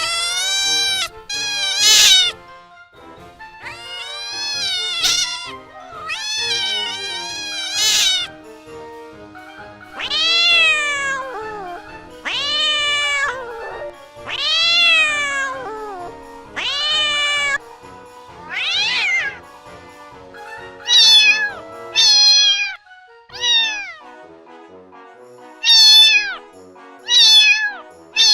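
Cat meowing over and over, about fifteen drawn-out meows a second or two apart, each rising then falling in pitch, over soft background music.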